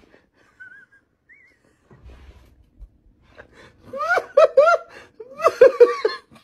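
A person laughing hard in short, high, gasping bursts, two quick runs of them starting about four seconds in.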